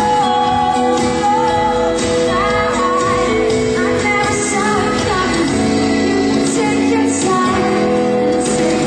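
A woman singing a pop-rock song live into a microphone, with acoustic guitar accompaniment.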